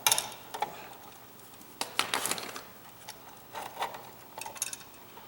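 Metal screwdriver clicking and scraping against a light switch's ground screw and the looped copper ground wire as the wire is pried loose, in short irregular clicks and scrapes with gaps between.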